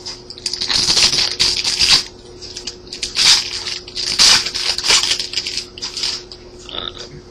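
Trading cards being handled and slid across one another as a pack is flipped through, a rustle in irregular bursts of a second or so.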